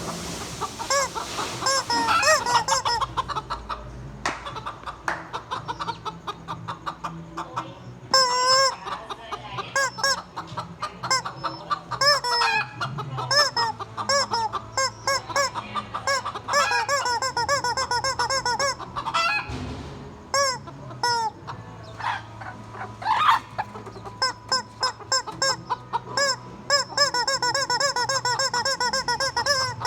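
Chickens clucking: many short rising-and-falling calls in quick runs, with a few sharper squawks.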